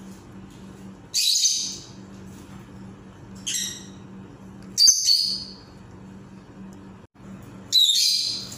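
Pet parrots giving four short, shrill calls, spaced one to three seconds apart, over a steady low hum.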